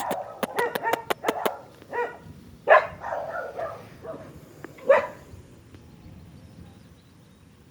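Dog barking in short, separate barks over the first five seconds, the loudest two about a third of the way in and midway. A quick run of sharp knocks sits under the barks in the first second and a half.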